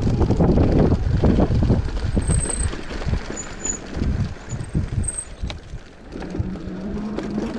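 An off-road vehicle's engine running on the move, with wind buffeting the microphone and knocks from rough ground. The noise dies down after about three seconds, and about six seconds in the engine settles into a steady idle hum.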